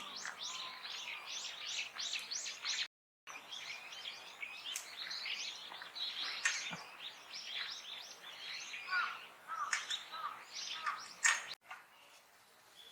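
Small birds chirping, a dense run of rapid, high chirps, with a few lower call notes mixed in later on. The sound drops out for a moment about three seconds in and again near the end.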